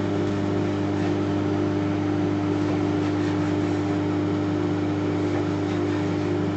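Microwave oven running with a steady electrical hum while it heats a bar of soap.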